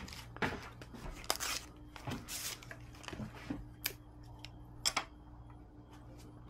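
Packaging rustling and crinkling in short bursts, with a few sharp clicks, the loudest two in the second half, over a faint steady hum.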